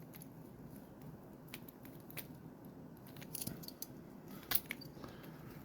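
Faint, scattered clicks and light rustles of a small fishing lure and its packaging being handled, the hooks and hard bait body ticking together.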